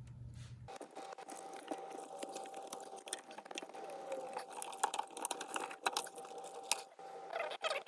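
Irregular small clicks, scrapes and rustles of hands working plastic ignition coils and connectors loose on a car engine, with a faint steady whine.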